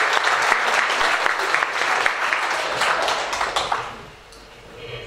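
A group of people applauding, which dies away about four seconds in.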